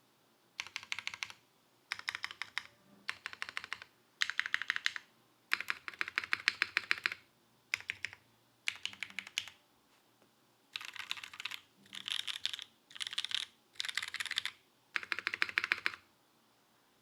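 Smith + Rune IRON180 mechanical keyboard being typed on in about a dozen short bursts of rapid keystrokes, with brief pauses between them. It is fitted with broken-in, lubed Kailh Cream linear switches on a carbon-fibre plate with no foam, under GMK keycaps.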